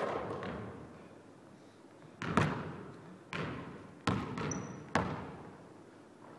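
Basketball dribbled on a hardwood gym floor, about five sharp bounces, each echoing through the large empty hall. There is a brief high squeak about two-thirds of the way through.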